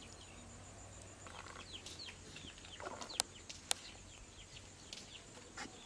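Chickens clucking, with small birds chirping around them and two sharp clicks about half a second apart a little past the middle.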